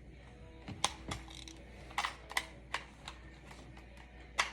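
About six sharp clicks and taps, irregularly spaced, from a homemade fake pistol being handled and its parts worked.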